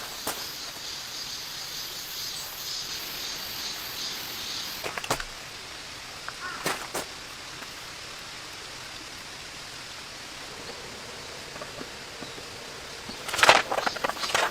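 Steady hiss of rain, brighter for the first few seconds, then a little softer. A couple of single clicks about five and six and a half seconds in, and a quick run of louder clicks and knocks near the end.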